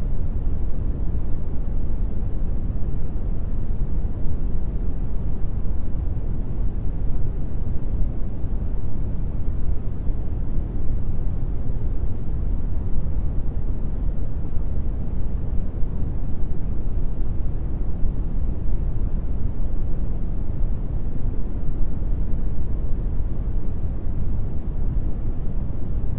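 Brown noise: a steady, deep rushing hiss, strongest in the bass and fading toward the treble, without change.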